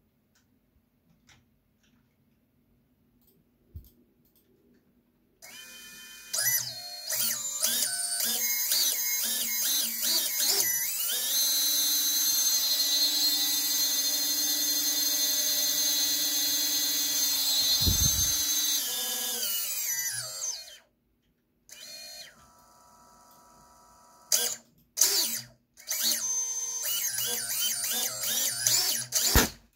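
Four brushless motors of a propless 6S FPV quadcopter, driven by a 4-in-1 ESC with no capacitor, whining with many stacked tones that step up in pitch, hold steady, then wind down; after a pause they are blipped in short bursts. A low thump comes about two-thirds through, and a short bang just before the end as an ESC capacitor blows, which the owner guesses was overvoltage from regenerative braking.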